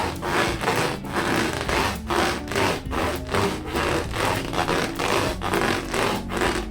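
Hands rubbing latex balloons in quick repeated strokes, about two a second.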